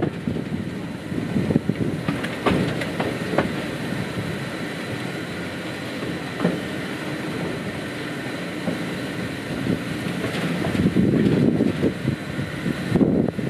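Small tourist train running on its track, a steady rumble with a few sharp clicks from the wheels over the rails and a faint high steady whine, as it rolls in alongside a station platform.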